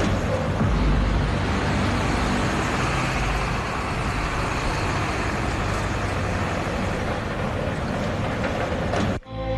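A bus engine running as the bus drives out through a gate and past, steady with a fuller sound in the middle as it comes closest. It cuts off suddenly near the end and music begins.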